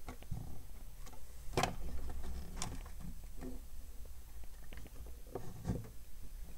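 A few light, scattered clicks and taps over a low steady hum, the loudest about a second and a half in: multimeter probes being set on a circuit board's capacitors to test them.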